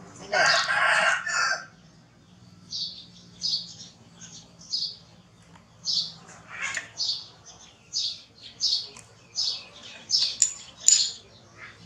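A baby macaque shrieks for about a second and a half, then a run of short, high chirps follows, one or two a second.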